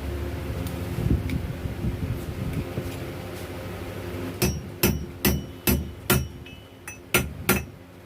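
Hammer striking metal: about eight sharp blows, roughly two a second, starting about halfway through, each with a short ring.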